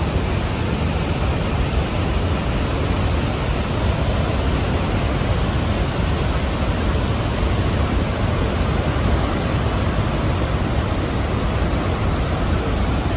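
Niagara Falls' Horseshoe Falls pouring over its brink close by: a loud, steady rush of falling water, heaviest in the low end.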